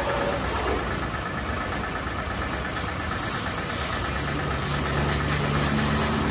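Car-wash pressure washer running: a steady motor hum over the hiss of water spray, with a deeper hum setting in about four seconds in.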